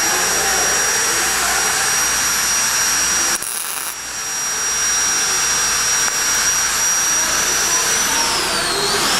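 Steady machine whine over a loud hiss. It dips briefly about three and a half seconds in, and the pitch slides down and back up near the end.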